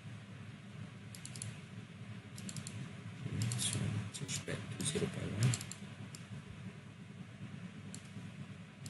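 Computer keyboard typing in short, irregular clusters of key clicks, busiest around the middle, over a steady low hum.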